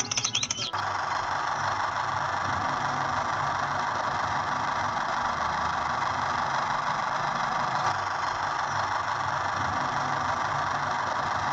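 Small electric motor of a DIY mini toy tractor running steadily with an even whir, starting about a second in.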